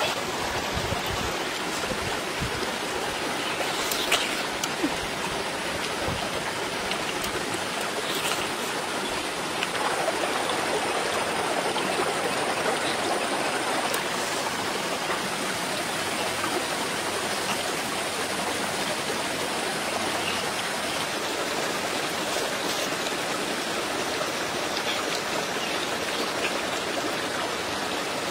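A shallow stream running steadily over rocks, with a few faint clicks a few seconds in.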